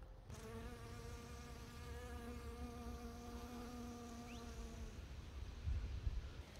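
Honeybee buzzing in flight: a steady hum that starts just after the beginning and stops about five seconds in. A few low thumps follow near the end.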